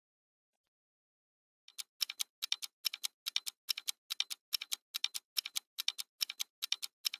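Ticking clock sound effect, an even tick-tock at about four ticks a second, starting after nearly two seconds of silence.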